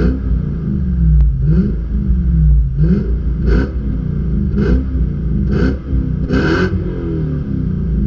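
Toyota Land Cruiser 200's 4.6-litre V8 revved in a series of quick blips while standing still, about one a second. The last blip, late on, goes highest and lasts longest before the engine falls back toward idle.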